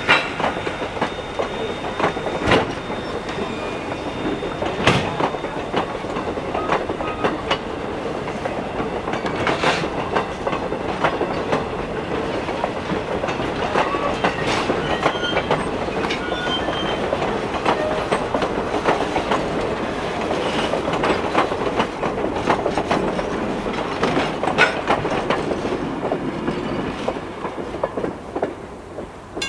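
Railroad cars rolling past, with wheels clicking irregularly over rail joints and a faint high wheel squeal near the start.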